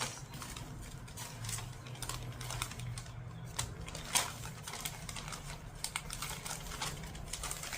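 Scattered light clicks and taps of small objects being handled, irregular and sharp, the loudest about four seconds in, over a low steady hum.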